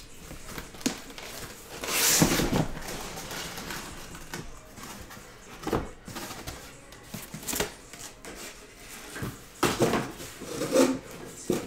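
Cardboard shipping case and shrink-wrapped hobby boxes being handled: a rustling scrape about two seconds in as boxes slide out of the case, then several short knocks and thumps as boxes are set down and stacked.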